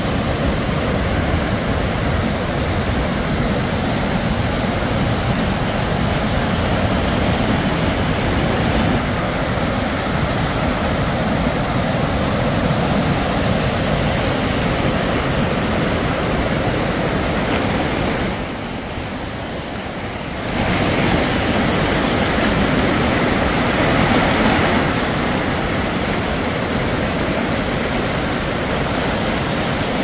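Whitewater mountain stream rushing over rocks, a loud, steady wash of water noise that dips briefly about two-thirds of the way through.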